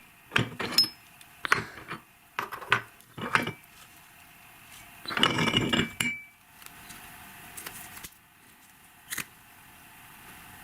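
Light clinks and knocks of hard objects and metal parts being handled around an electric meat grinder, about a dozen separate taps in the first four seconds, a longer clattering rattle about five seconds in, and one more click near the end.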